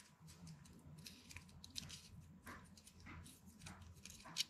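Faint handling noise: light scrapes and small clicks of a metal panel jack being worked against a plastic part in the fingers, with one sharper click near the end.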